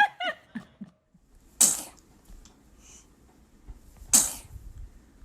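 A baby sneezing twice: two short, sharp sneezes about two and a half seconds apart.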